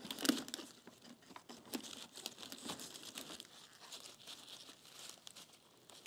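Crinkling and rustling with many small irregular clicks and snaps, as roses and foliage are handled and worked into the arrangement. The loudest crackle comes a fraction of a second in.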